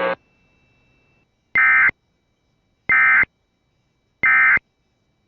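Emergency Alert System end-of-message (EOM) code: three identical short bursts of buzzy digital data tones, evenly spaced about 1.3 seconds apart, signalling the end of the tornado warning.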